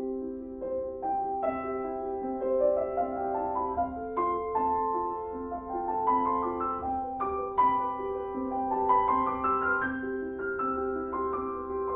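Background piano music: calm sustained notes with runs of rising notes climbing in pitch.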